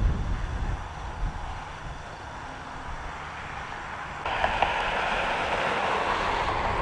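Outdoor airfield noise: low wind rumble on the microphone, then from about four seconds in a sudden, louder steady rush of jet-airliner engine noise.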